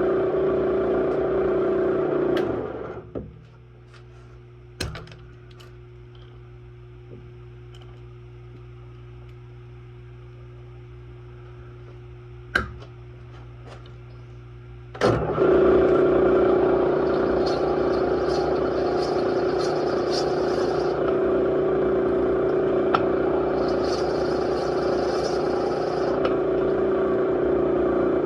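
Power-tool motor turning a Crower dual valve-spring cutter, milling the broken spring boss on an aluminium cylinder head flat with the spring perch. It runs steadily, stops about three seconds in, leaving a lower steady hum with a couple of knocks, then starts again with a sharp click about fifteen seconds in. Higher scraping cutting noise comes and goes in the second half.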